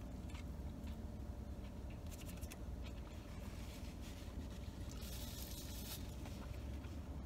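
Quiet eating and handling sounds inside a car: a man chewing a soft taco, with a few faint clicks and about a second of paper napkin rustling around five seconds in, over a steady low hum.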